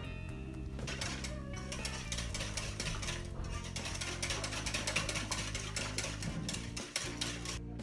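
Wire whisk beating a runny batter in a glass bowl, its wires clicking rapidly against the glass. The clicking stops just before the end.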